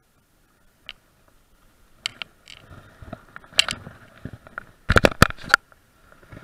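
Handling noise close to the camera as the angler works the fly line and rod: scattered sharp clicks and knocks, then a quick run of loud knocks about five seconds in.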